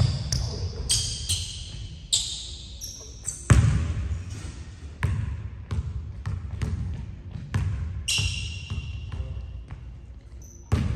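Basketball bounced on a hardwood gym floor, a run of dribbles starting a few seconds in, each thump echoing in the hall, with sneakers squeaking on the court in short high-pitched chirps and one longer squeak near the end.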